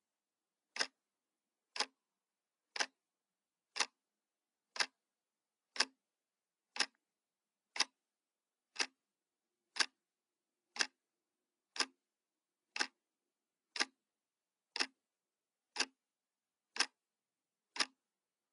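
Clock-ticking sound effect: a single sharp tick each second, evenly spaced, counting down a timer.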